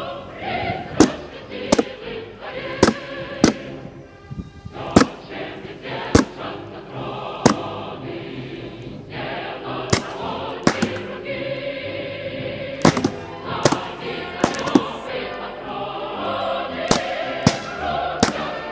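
A choir singing a Russian revolutionary march as background music, crossed by about fifteen sharp, short cracks at uneven intervals. The cracks are homemade solid-fuel pen rockets firing one after another from a model BM-21 rocket-launcher truck.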